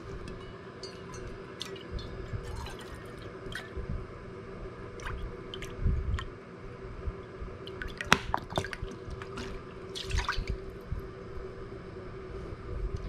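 Lemon juice poured from a plastic bottle into a stainless steel measuring cup, trickling and dripping, then tipped from the cup into a stainless steel pot near the end. Light clicks and knocks of handling come throughout, the sharpest about eight seconds in, over a faint steady hum.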